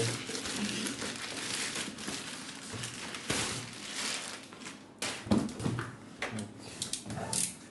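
Packaging being unwrapped by hand, crinkling and rustling steadily, with a few sharper crackles.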